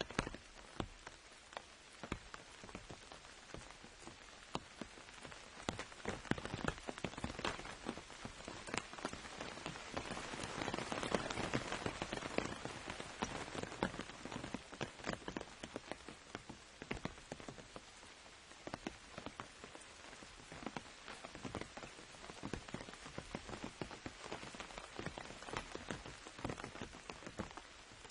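Rain falling on an umbrella: steady patter with many separate drops ticking on the canopy, swelling heavier for a few seconds around the middle.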